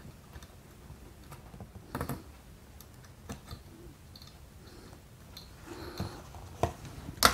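Irregular light clicks and taps, roughly one a second, from a soldering iron tip and a jumper wire being worked against the solder pads of a printed circuit board; the sharpest click comes near the end.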